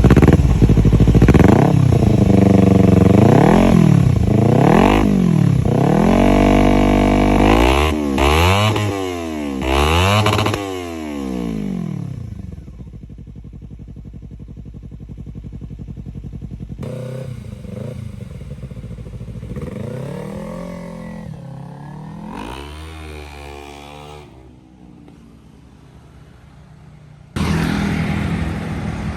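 Kawasaki Z250/Ninja 250 parallel-twin engine breathing through a Two Brothers aftermarket exhaust, revved hard again and again, its pitch climbing and dropping about seven times in quick succession. After that the engine sound falls much quieter and more distant, still rising and falling in pitch. It comes back loud and abruptly near the end.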